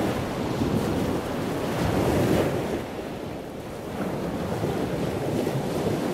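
Wind buffeting the microphone: a rushing noise that swells and eases in gusts, easing most about three seconds in.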